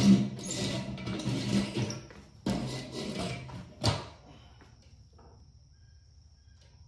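Metal engine parts scraping and rattling as a cover is worked into place by hand, in two bouts, ending in a sharp metallic knock about four seconds in.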